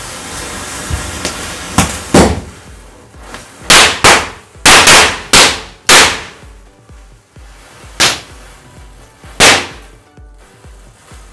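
A hiss for the first couple of seconds, then small Diwali firecrackers going off one after another as a burning matchstick chain lights them: about ten sharp bangs, most packed into a few seconds, then two more spaced out near the end.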